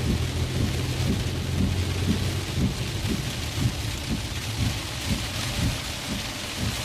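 Heavy rain on a moving car, with a low steady rumble of the car and road underneath that eases after a couple of seconds.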